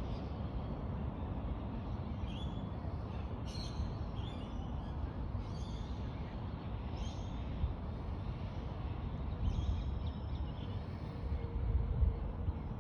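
Outdoor ambience: a steady low rumble with several short bird calls scattered through it.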